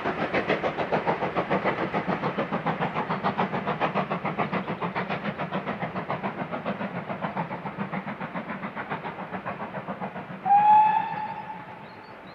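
Steam locomotive exhaust beats, quick and even, fading as the train draws away. About ten and a half seconds in, a steam whistle sounds once, a short loud note that dips slightly in pitch.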